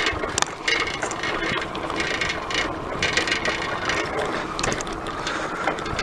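Bicycle being ridden on a tarmac road: irregular mechanical ticking and rattling from the bike over a steady rushing noise.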